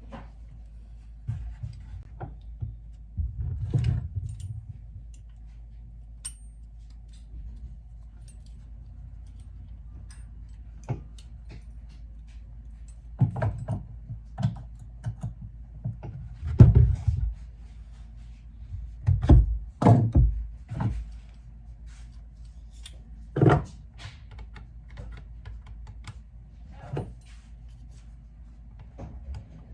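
Hands working on a bolt-action rifle and tools: scattered clicks, knocks and thunks of metal and plastic parts, with the loudest knocks about two thirds of the way through, over a steady low hum.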